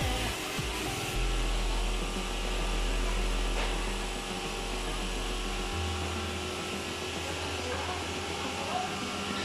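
SMBL 360 automatic straight edge banding machine running, its electric motors giving a steady hum. The deep part of the hum changes pitch a little past halfway.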